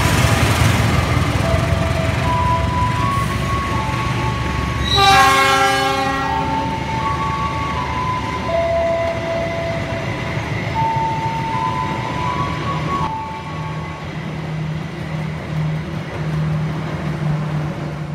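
Diesel locomotive hauling passenger coaches past with a heavy engine rumble. About five seconds in, its horn sounds once for about a second. Near the end the rumble settles into a steady low engine hum.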